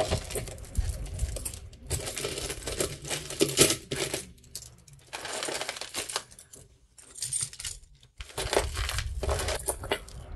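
Costume jewelry handled in a heap: bead strands, chains and small metal pieces clinking and rattling against each other, with two brief quieter pauses midway.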